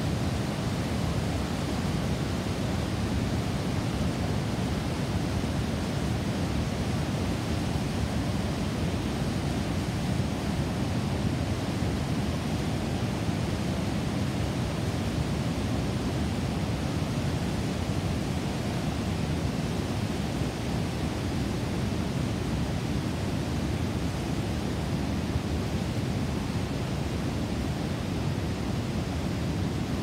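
Whitewater creek and waterfall rushing down a narrow rock gorge: a steady, unbroken rush of falling water, deepest in the low range.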